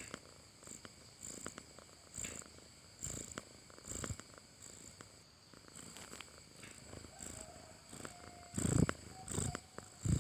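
Cat snoring in its sleep: a soft, rasping, purr-like rattle with each breath, about a second apart and uneven, loudest near the end. Small clicks run through it, and a faint thin whistle rides on the breathing a few seconds before the end.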